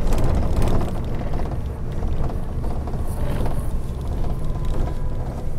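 Steady low rumble of a bus engine and road noise, heard from inside the passenger cabin while the bus drives.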